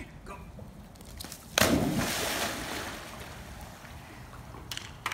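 A pitbull leaps into a swimming pool with one loud splash about a second and a half in. The water then sloshes as the dog swims.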